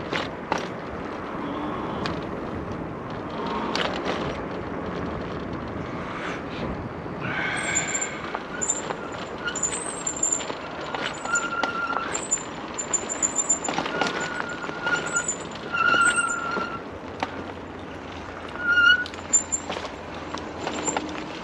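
Electric bike rolling along a rough dirt trail: steady tyre and wind noise with frequent knocks and rattles over bumps. From about a third of the way in come a series of short, high squeals, each under a second long.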